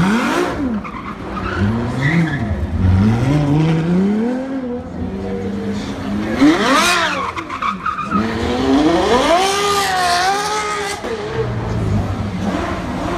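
Ferrari LaFerrari's V12 engine revving up and down again and again as the car drifts, with tyres squealing and skidding, loudest about six to seven seconds in.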